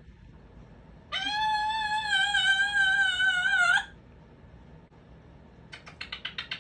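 Congo African grey parrot giving one long, slightly wavering whistled note lasting under three seconds. Near the end it follows with a quick run of about eight short clicking notes.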